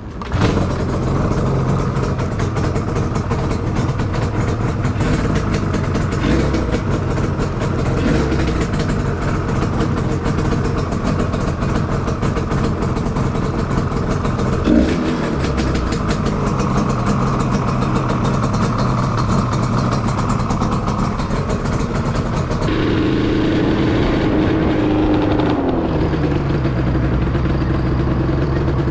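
Yamaha RZ350's freshly rebuilt two-stroke parallel-twin engine running steadily at idle. About 23 seconds in the sound changes as the bike gets under way: the engine pitch goes up, holds, then falls back.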